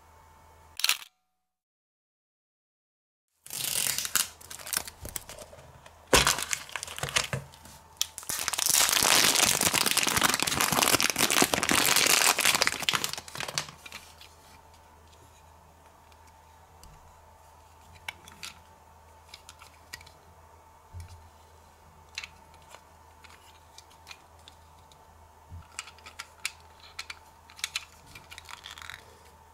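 Thin plastic packaging crinkling and tearing for several seconds, followed by scattered light clicks and taps of a miniature plastic toy microwave oven being handled. Near the start there is a sharp click and then a couple of seconds of dead silence.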